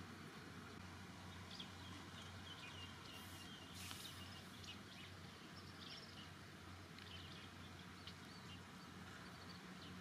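Quiet background with a low steady hum and faint, scattered short high chirps, with a brief soft hiss just before the middle.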